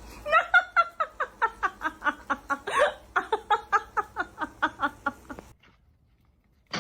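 A dog yipping in a fast string of short, high yelps, about four a second, each falling slightly in pitch. It stops abruptly about five and a half seconds in.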